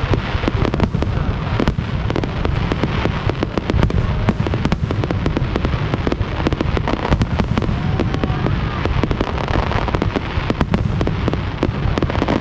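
Fireworks display going off without a break: a dense, rapid barrage of bangs and crackles over a heavy low rumble.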